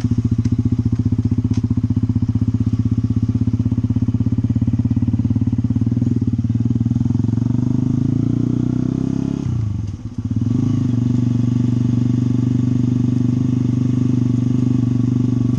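Motorcycle engine running steadily under way. The revs climb about eight seconds in, drop sharply with a brief dip in loudness around ten seconds in, then settle back to a steady run.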